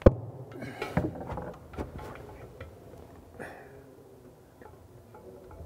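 A sharp knock, then a few lighter knocks and clicks in the first two seconds, fading to faint handling noises: hands working fittings behind a ceramic wash-basin pedestal.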